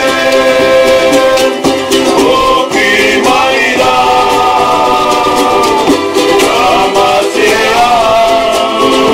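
Ukulele strummed while men sing, with long held sung notes, and a small hand drum is tapped along.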